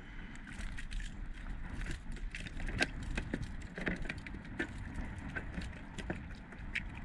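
Irregular clicks, knocks and rattles of fishing tackle and kayak fittings being handled, over a steady low rumble of wind on the microphone.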